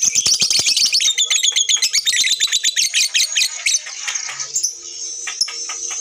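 Lovebirds chattering in a rapid, unbroken stream of high-pitched chirps, the long 'ngekek' song, easing off to softer, scattered chirps about four seconds in.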